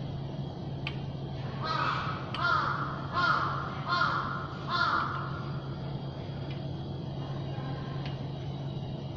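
A crow cawing five times in a row, harsh calls about 0.8 s apart, over a steady low hum.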